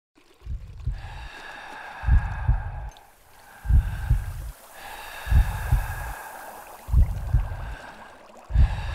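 Heartbeat sound effect: slow double thumps, about one beat every second and a half, over a steady high tone.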